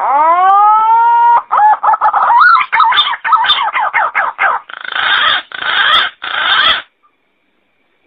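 Pink-necked green pigeon (punai) calling: a long whistled note that rises and levels off, then a fast run of wavering, warbling notes, ending in three harsh grating notes.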